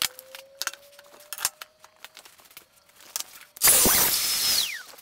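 Scattered clicks and knocks of a workpiece and clamps being handled, then about three and a half seconds in a Festool TS 60 plunge track saw starts and runs loudly, cutting a pass through a gang of stacked plywood ribs, with a whine that falls in pitch near the end.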